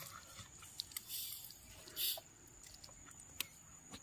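Faint sounds of eating by hand from a foil plate: soft clicks and chewing, with two short rustles about one and two seconds in and a sharper click near the end.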